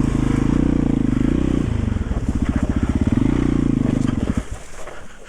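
Yamaha XT350's single-cylinder four-stroke engine running at low revs, with the pitch rising and falling as the throttle is blipped and dropped to slow, even firing pulses. It cuts out abruptly near the end.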